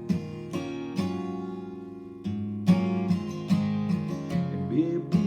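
Acoustic guitar strumming chords, each stroke left to ring. One chord rings on for about a second before the strumming picks up again.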